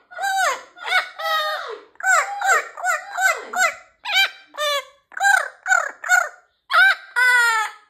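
Amazon parrot giving a quick run of short, high calls, about two a second, each rising then falling in pitch, with two longer drawn-out calls, one a little over a second in and one near the end.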